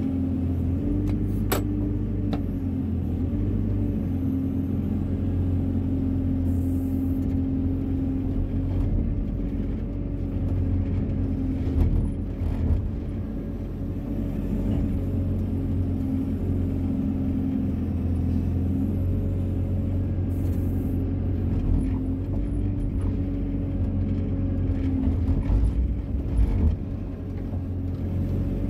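Wheeled excavator's diesel engine running steadily under hydraulic load while the bucket digs a trench, with a few brief clunks from the bucket and arm about 12 seconds in and again near the end.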